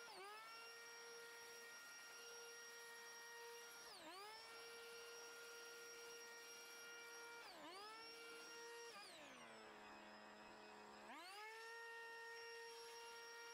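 Faint, steady whine of a cordless DeWalt leaf blower's fan motor blowing leaves out of mulch. Its pitch dips and swings back up three times as the speed drops and recovers, and it runs at a lower speed for about two seconds past the middle before climbing back to full.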